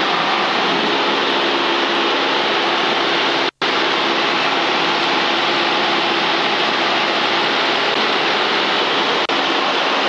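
Loud, steady hiss of static in the RV-7's headset intercom, with the engine's drone faintly beneath it. It cuts out for an instant about three and a half seconds in. The pilot blames the static on a radio; it appears at higher engine rpm and goes away when power is pulled back below about 1,900 rpm.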